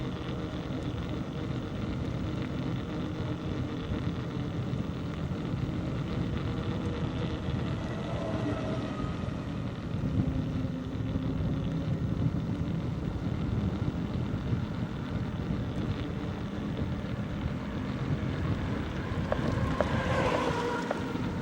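Steady low rumble of a bicycle ride: wind on the microphone and road noise. A brief higher sound with a few ticks comes in near the end.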